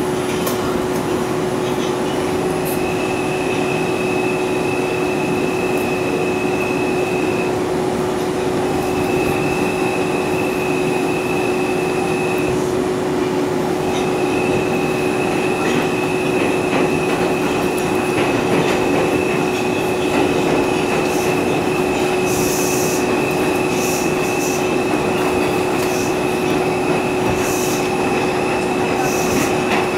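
R142 subway car running at speed through a tunnel: a steady rolling rumble of wheels on rail with a constant hum and a thin high whine that drops out twice, and a few sharp clicks near the end.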